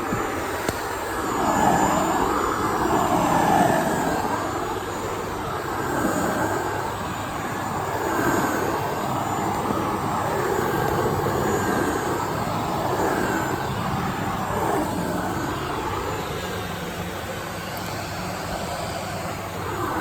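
Dyson Ball Animal 2 upright vacuum cleaner running continuously, a steady motor whine over rushing air that swells and dips every couple of seconds.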